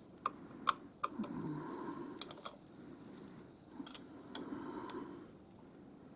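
Scattered light clicks and taps, about seven over the first four and a half seconds, from hands working with tools and fittings on a milling machine setup.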